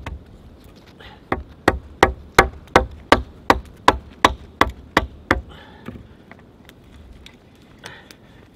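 About a dozen sharp wooden knocks, nearly three a second, stopping about five and a half seconds in: a knife being knocked down a lengthways split in a green sapling to split it.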